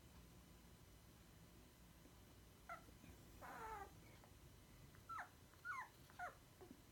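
Faint whimpers from 3-week-old Goldendoodle puppies: a short squeak, then a longer whine that falls in pitch about three and a half seconds in, and three quick falling squeaks near the end.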